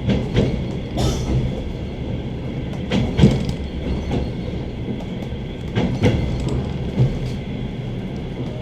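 Suburban train's wheels clacking over rail joints while running at speed: a steady rumble broken every few seconds by pairs of knocks as each bogie crosses a joint.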